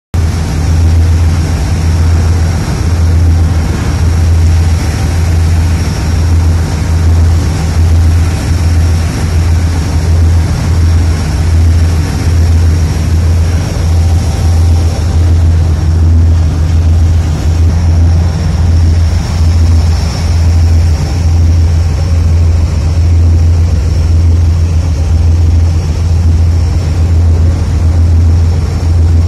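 A ship under way at sea: a loud, steady low rumble of wind and engine drone, with the wash of water rushing along the hull.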